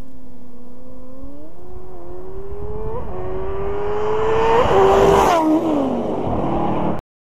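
A vehicle at full throttle accelerating hard up through the gears, its engine pitch climbing and dropping back at each upshift. A loud rush comes about five seconds in as it passes, and the pitch falls after that. The sound cuts off about seven seconds in.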